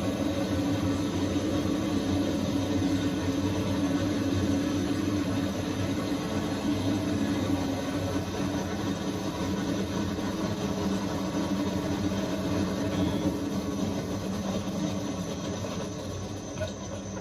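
A machine firing a barrage of bottle caps at a contestant, running steadily with a rushing noise and a low hum, then dying away near the end.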